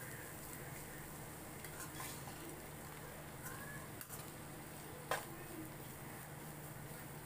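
A metal spoon stirs and scrapes a dry spiced karela-and-onion masala in a non-stick kadai, with a faint sizzle, over a steady low hum. One sharper clack of spoon against pan comes about five seconds in.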